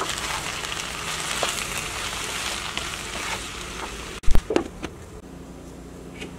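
Chopped vegetables and potatoes sizzling in a skillet while being stirred with a wooden spoon, then a few loud clanks of cookware about four seconds in, after which the sizzling is much quieter.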